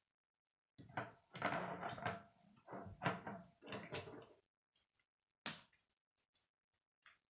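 Plastic K'nex pieces clattering and knocking as a half-built K'nex model is handled and turned over, in several loud strokes over the first few seconds, then a few single clicks near the end.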